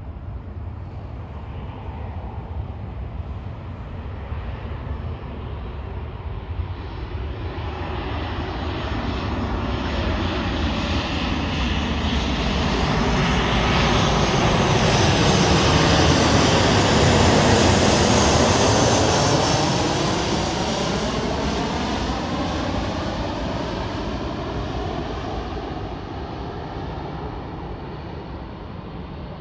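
Boeing 737-7BC business jet's twin CFM56-7 turbofans on landing approach, passing by: the jet noise swells steadily, is loudest about two-thirds of the way through with a sweeping, phasing whoosh, then fades away.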